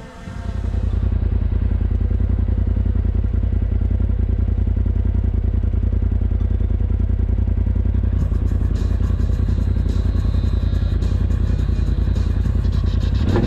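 Turbocharged Polaris RZR XP Pro side-by-side engine running steadily with a low, evenly pulsing rumble that comes up about half a second in. From about eight seconds in, a higher rattling hiss joins it.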